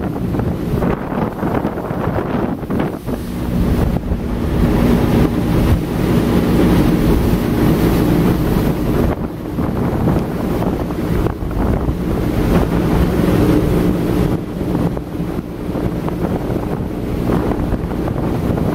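Motorboat under way: a steady engine hum under water rushing past the hull, with heavy wind buffeting the microphone. The engine hum is strongest through the middle and eases somewhat toward the end.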